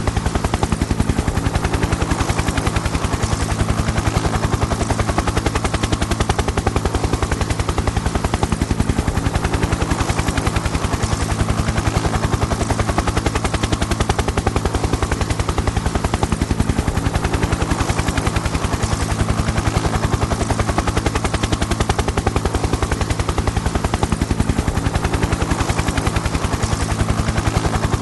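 Helicopter rotor blades chopping in a rapid, even rhythm over a steady low engine hum, holding a constant level.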